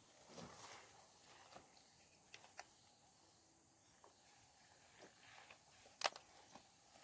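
Near-silent rural outdoor ambience: a thin, steady, high-pitched insect tone, scattered light clicks and rustles, and one sharper click about six seconds in.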